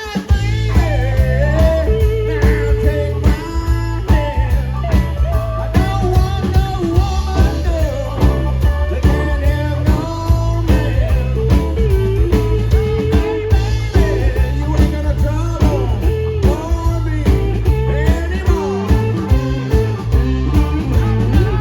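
A blues-rock band playing: electric guitar lines over bass and drums with a steady beat. The full band comes back in at the very start after a brief drop.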